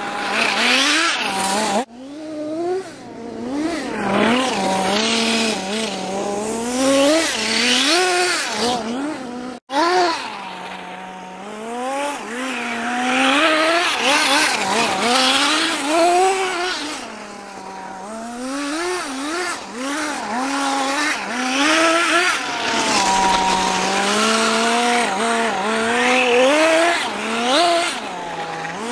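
Kyosho DRT's GXR18 nitro engine revving up and down over and over, its pitch sweeping high and falling back to a low steady idle between bursts. The sound cuts out suddenly twice for a moment.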